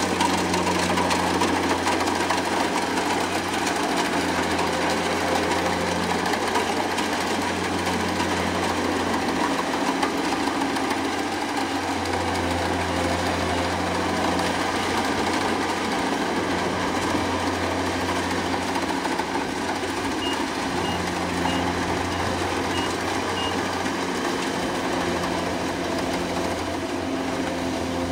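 Kubota combine harvester running steadily, its engine and machinery droning and swelling and easing every few seconds. A faint series of short high beeps, about two a second, sounds roughly two-thirds of the way through.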